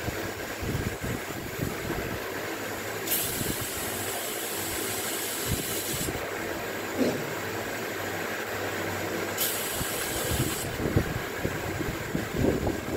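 Compressed air hissing from an air gauge's measuring jets in two spells, about three seconds and just over a second long, with a third starting near the end. Between them come light knocks of the metal part being turned in the gauge, over a steady low hum.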